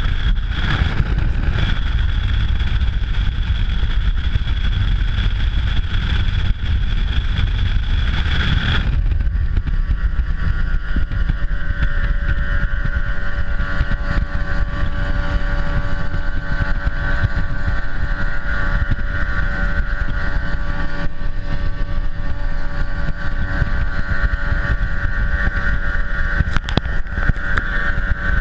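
Ranger fishing boat with a Mercury Pro XS 250 hp outboard running at speed, with wind buffeting the microphone. About nine seconds in, the engine's note changes: a high whine drops away and a different set of steady tones takes over.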